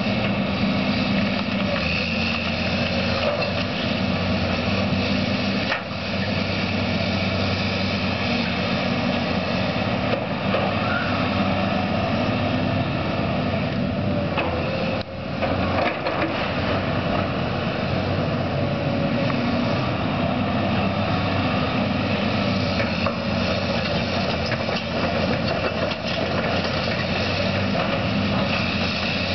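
Caterpillar hydraulic excavator's diesel engine running steadily under load as its demolition grapple lifts and sorts brick and roofing rubble.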